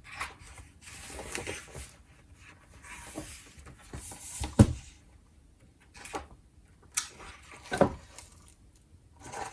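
Pages of a paper agenda being turned and handled, with soft rustling and a few light knocks, the sharpest about halfway through.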